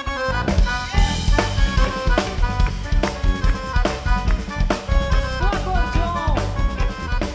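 Band playing the instrumental opening of a milonga: a steady drum-kit beat with bass drum and snare, about two strikes a second, under bass and pitched melody instruments.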